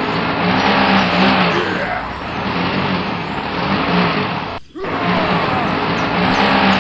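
A motor vehicle engine running, with a pattern that repeats every couple of seconds. It cuts out for a moment about two-thirds of the way through and comes straight back.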